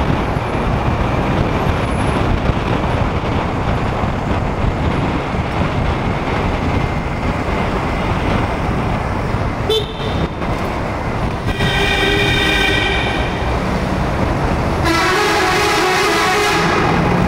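Steady wind and road rush from riding a motorcycle in traffic, with vehicle horns honking over it: a short toot about ten seconds in, a honk of about a second and a half soon after, and a long held honk near the end.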